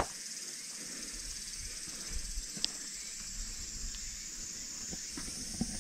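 A steady, high-pitched insect chorus, with a sharp click at the very start and a few faint soft knocks.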